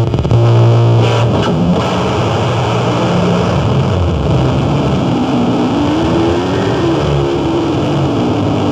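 Live noise music: a dense wall of distorted, effects-processed sound with a low steady drone in the first second. Through the middle, a wavering tone rises and falls.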